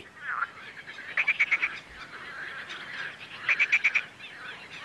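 Marsh frogs (laughing frogs) calling at a pond: two bursts of quick pulsed croaks, about a second in and again about three and a half seconds in, over a fainter chorus of more frogs.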